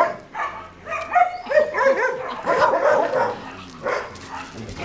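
Several dogs barking, many short calls overlapping, some of them high and gliding in pitch.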